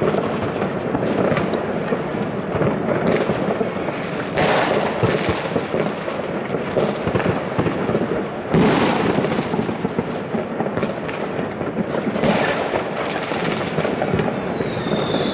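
Fireworks going off all over a city at once: a continuous crackle and popping of many rockets and firecrackers, with louder bangs about four, eight and a half and twelve seconds in, the middle one the loudest. Near the end a high whistle slides slightly downward in pitch.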